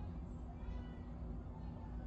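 A faint, drawn-out pitched call, like an animal's, over a steady low hum.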